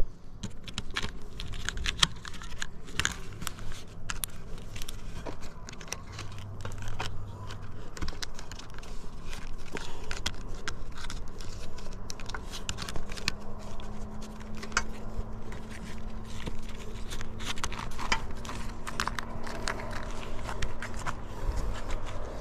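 Pleated metal-foil ridge flashing crinkling and crackling as it is pressed down onto roof tiles by hand: a loose, irregular run of small clicks and rustles.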